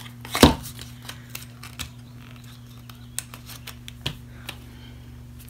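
Clicks and taps of a lipstick and its small cardboard box being handled on a table: one sharp knock about half a second in, then a few faint clicks, over a steady low hum.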